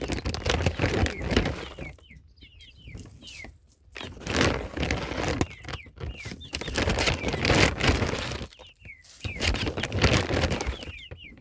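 Young chicks peeping in short, falling chirps, in small clusters, over loud, repeated rustling and crunching.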